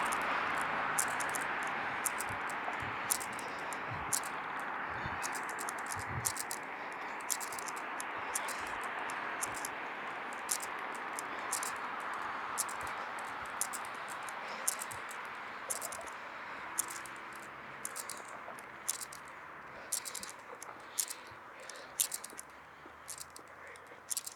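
Street traffic hiss slowly dying away, with scattered sharp ticks and rustles that stand out more as it fades.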